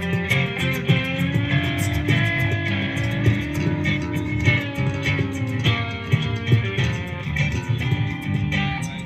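Live band playing an instrumental passage through a PA: electric guitar over bass guitar, with a steady beat.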